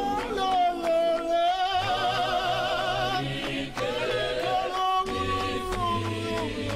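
Church choir singing a Sesotho gospel song, with a male lead voice singing with vibrato over the group and hands clapping in time.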